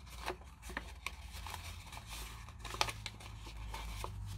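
Folded paper airplane crinkling and rustling in the hands as its tail is opened and pushed up for a reverse fold: faint scattered crackles, one sharper about two-thirds through, over a low steady hum.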